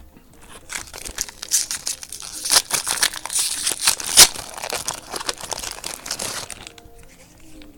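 A trading card pack's wrapper being torn open and crumpled: a few seconds of dense crinkling and crackling with many sharp snaps, the loudest a little past the middle, dying away near the end.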